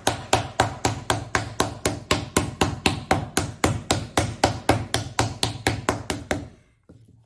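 Wooden paddle beating a round clay slab flat on a stone work table to thin it: steady, rapid strikes about four a second that stop about six and a half seconds in.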